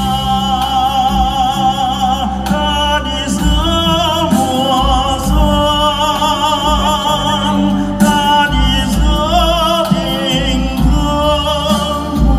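Live stage singing with wide vibrato on long held notes over instrumental backing, heard from within the audience.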